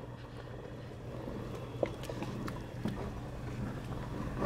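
Wooden spoon stirring chili in a large steel stockpot, with faint scattered knocks and scrapes, one sharper knock about two seconds in, over a steady low hum.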